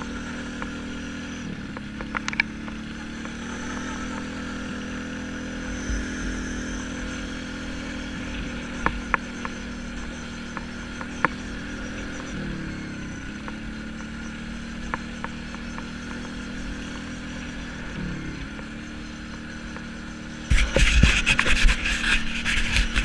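Quad bike (ATV) engine running steadily as it is ridden along a dirt track, its pitch dipping and recovering a few times with changes of throttle, with an occasional sharp knock. A few seconds before the end, loud rough rattling and buffeting takes over.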